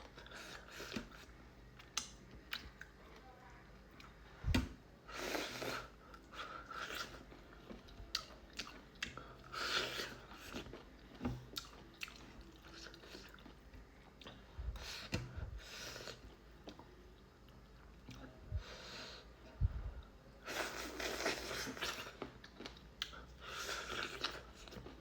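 A person eating spicy noodles with corn close to the microphone: chewing with crunchy bites in irregular bursts.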